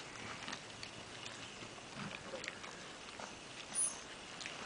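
Five-week-old Great Pyrenees puppies playing together: faint scuffling and small puppy noises, with a brief high squeak a little before the end.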